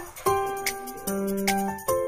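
Background music: a melody of held, pitched notes over a steady ticking beat.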